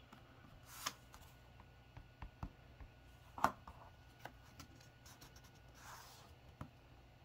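Quiet hand handling of laser-cut wooden pieces on a cutting mat: soft rubbing and brushing with a few small taps. A sharper knock comes about three and a half seconds in, as the super glue bottle is set down on the mat.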